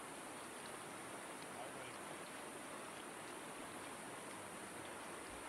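Steady rush of a shallow river's water flowing around the wader's legs and over its rocky bed.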